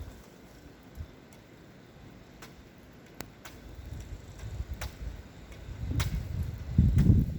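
Blizzard wind buffeting the microphone as a low rumble that builds and gusts loudest near the end, with scattered sharp clicks.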